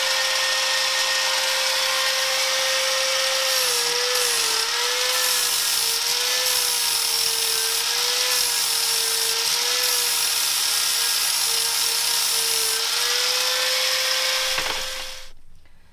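Electric grinder running on the steel gear shift lever, its pitch dipping and wavering as it bites into the metal, then switched off and winding down near the end.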